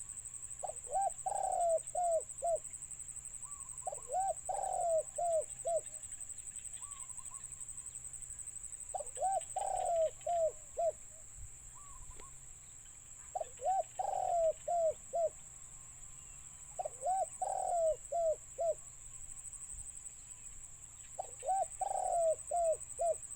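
A dove cooing: six phrases, each a quick run of five or six low, rounded coos, with pauses of a few seconds between them. This is a caged decoy dove calling, and no wild dove answers.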